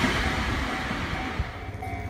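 Freight train wheels and wagons rumbling on the rails as the train moves away, fading over the first second and a half. From shortly in, a repeating electronic tone beeps about twice a second.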